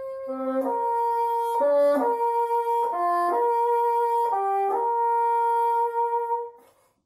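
Bassoon playing a slow melody: long held notes joined by short runs of a few quicker notes, dying away near the end.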